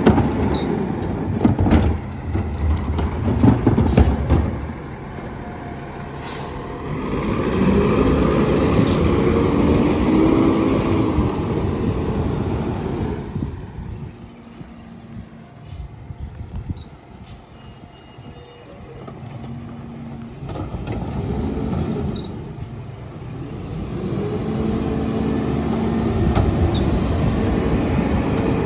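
Lodal split-body side loader garbage truck: a few knocks and clatter from the cart tipper and carts at first, then the truck's diesel engine revving up as it pulls away, dropping off as it moves down the street, and building again as it comes to the next stop, with air brakes hissing.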